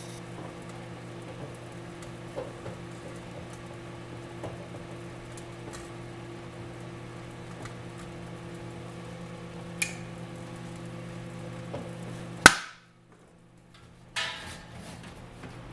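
Microwave oven running with a steady hum while a circuit board inside gives scattered small crackles and one sharper pop. About twelve and a half seconds in, a loud click sounds and the hum cuts off as the oven stops. A brief clatter follows near the end.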